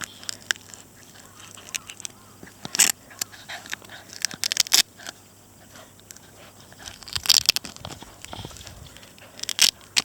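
Akita puppies scuffling at play: scattered clicks, scrapes and rustles from paws and mouths, with a few louder sharp clicks.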